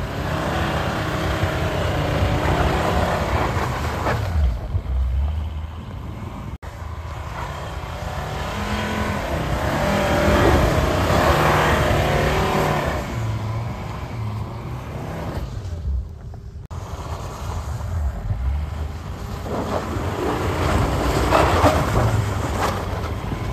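Volvo XC70 D4 AWD's five-cylinder diesel engine revving up and down as the car drives and drifts through deep snow. The sound cuts out abruptly twice, about a third of the way in and again past the middle.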